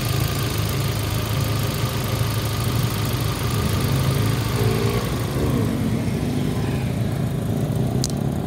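Fuel-injected car petrol engine idling steadily after an injector and fuel-rail flush with injector cleaner.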